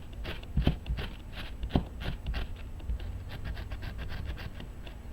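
Scales being scraped off a sand dab's skin in quick, irregular back-and-forth strokes, louder in the first couple of seconds and fainter after.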